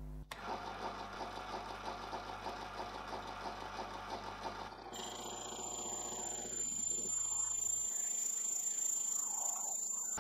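Proxxon mini metal lathe running as it turns a square metal bar, with a fast even pulsing. About five seconds in, the sound changes to a steadier run with a high, steady whine while the tool cuts the end of the bar next to the tailstock centre.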